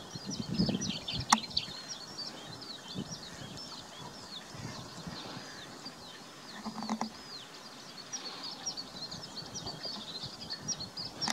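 Many small birds chirping and twittering continuously, short high calls overlapping thickly, with scattered low thumps and a single sharp click about a second in.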